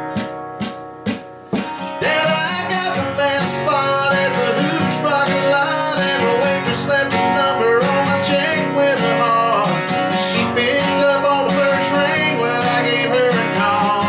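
Two acoustic guitars strumming a country song while a man sings. The first couple of seconds are quieter, with a few separate strums, before full strumming and singing come back in.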